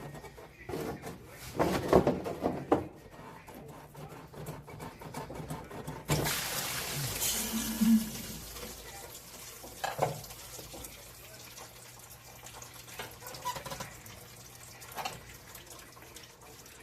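Liquid suddenly starts pouring and splashing about six seconds in, loudest at the start and then slowly tapering off. A few knocks of tools or parts come before and after it.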